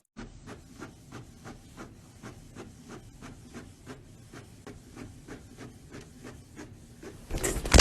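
Steady rhythmic scraping or rasping, about four strokes a second, with a brief louder burst near the end.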